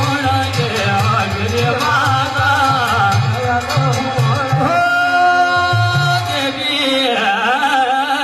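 Kumaoni jagar folk music: a hudka hourglass drum beating under a wavering sung melody, with one long held note about five seconds in.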